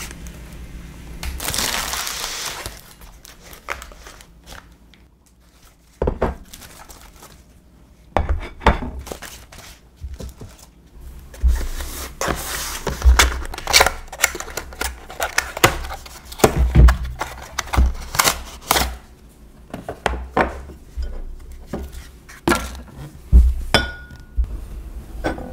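Bubble wrap crinkling as ceramic bowls are unpacked from a cardboard box, then ceramic plates clinking and knocking against each other and the table in many short, sharp clicks.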